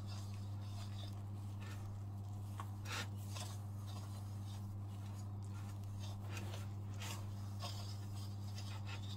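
A silicone spatula stirring and scraping crumbly scone dough in a glass bowl, in irregular rubbing scrapes with a louder one about three seconds in. A steady low hum runs underneath.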